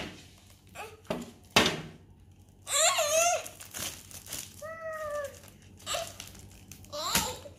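Clear plastic wrap crinkling and rustling in short, separate rustles as it is peeled off a wooden toy board, with a young child's high voice calling out twice in the middle.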